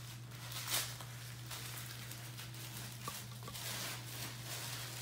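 Packaging rustling and crinkling as a small parcel is unwrapped by hand, with a light click about three seconds in, over a steady low hum.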